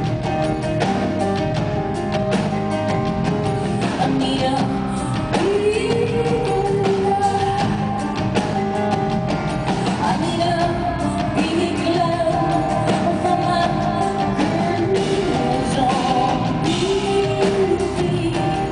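Live performance of a rock song: a woman singing over a full band with a steady drum kit beat and keyboards.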